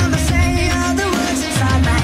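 Loud background music with a driving beat and heavy bass, its deep bass notes sliding down in pitch.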